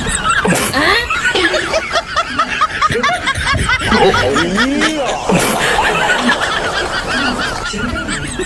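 Laughter from several voices at once, snickering and chuckling, with a wavering, pitched sound.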